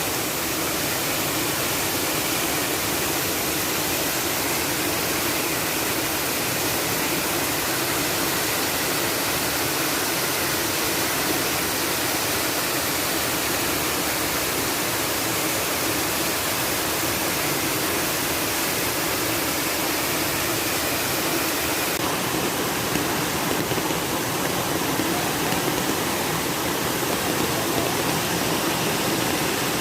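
Waterfall: water falling and splashing in a steady, even rush, with a slight shift in its hiss about two-thirds of the way through.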